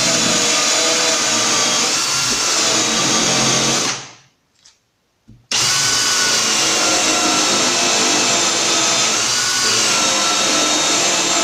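Cordless drill in plain drilling mode, not hammer, turning a Forstner bit through a Kreg concealed-hinge jig to bore a cup-hinge hole in a laminated board. The motor's whine shifts in pitch as the bit loads up. It stops about four seconds in and starts again about a second and a half later.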